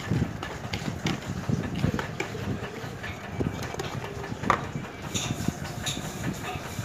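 Spoon stirring dry batter ingredients (flour, sugar, turmeric, baking powder and salt) in a bowl: irregular scraping and light tapping, with a few sharper clicks about four and a half seconds in.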